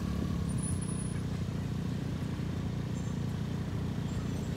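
Steady low hum of a motor vehicle engine running, with a brief high-pitched tone about half a second in.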